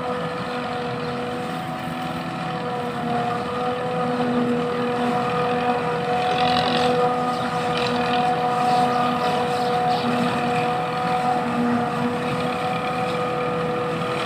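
Silage harvester chopping standing maize and blowing it into a trailer, with a tractor's engine running alongside: a steady machine drone with a constant humming tone.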